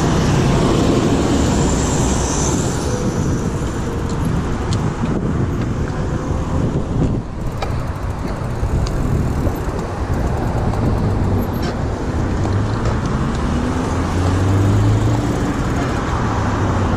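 City road traffic noise: cars and a bus passing on a busy multi-lane road, a steady rumble with one vehicle's engine swelling as it goes by about fourteen seconds in.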